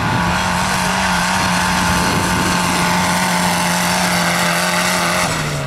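Tractor diesel engine held at steady high revs, its pitch level, then the revs drop in two steps near the end.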